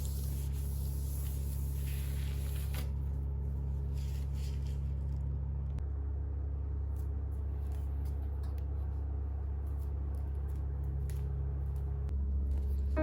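A steady low rumble with faint scattered clicks and taps over it; a high hiss over the rumble cuts off about three seconds in.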